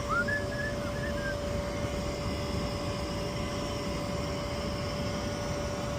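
Air Temp ultra low-NOx gas furnace running steadily, burners lit and blower going, with a steady hum, its manifold gas pressure set at 3.3 inches of water column. A brief high whistle-like glide sounds in the first second or so.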